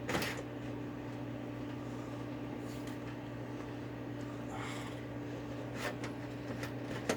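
Dell Optiplex 790 tower PC running with a steady hum, its case open. A few faint clicks and knocks from handling parts inside the case.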